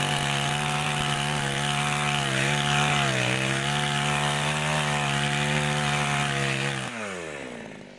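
Petrol two-stroke chainsaw running at full throttle, cutting through a frozen reindeer carcass, its note dipping slightly under load about three seconds in. Near the end the engine revs fall away as the throttle is released.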